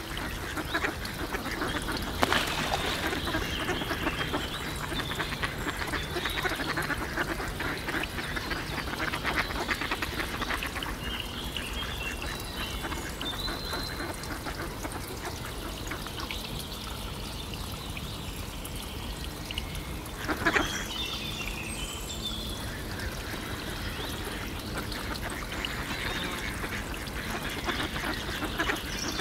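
Young mallards feeding from a metal bowl: a dense, rapid clatter of bills dabbling and pecking at food, with short duck calls here and there and one sharp knock about twenty seconds in. Water splashes steadily behind.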